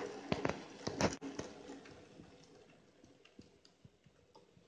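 N gauge model trains running on the layout: a steady running noise that fades away over the first couple of seconds. A few sharp clicks come in the first second and a half, the loudest about a second in.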